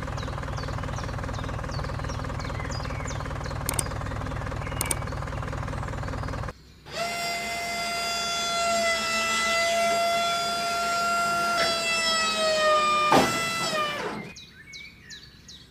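A steady low motor drone cuts off about six and a half seconds in. A steady high-pitched electric motor whine follows as the toy tractor trolley's tipper raises its bed, and it drops in pitch near the end under the load. A brief rush near the end fits the miniature bricks sliding out.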